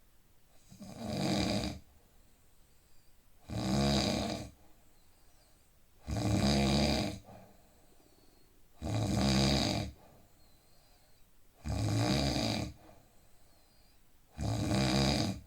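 A man snoring in deep sleep: six snores, evenly spaced about every two and a half to three seconds, each lasting about a second, with quiet between them.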